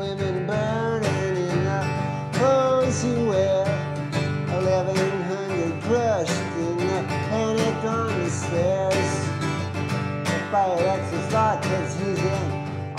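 Country-style music with plucked acoustic guitar and a melody line that slides in pitch.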